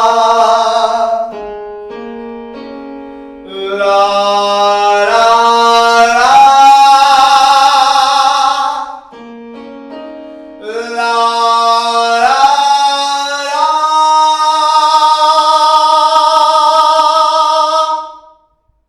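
A man sings a vocal warm-up exercise on 'la, ra, ra': three loud, sustained phrases, each pitched higher than the last, sung with a widening mouth and more body energy to open up the voice. Quieter keyboard notes sound in the gaps between the phrases.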